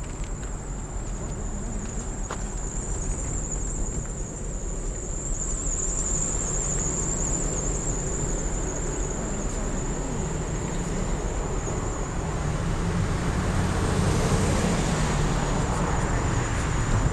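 Distant diesel engine drone of an approaching CSX CW44AC locomotive, growing louder over the last few seconds, over a steady outdoor hiss with a thin high-pitched whine.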